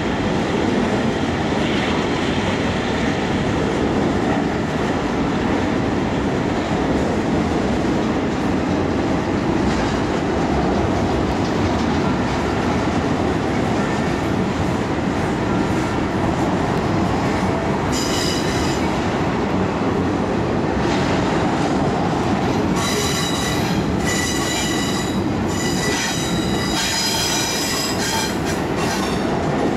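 Double-stack intermodal freight train's well cars rolling past in a steady rumble. From about two-thirds of the way through, high-pitched wheel squeal comes and goes over it.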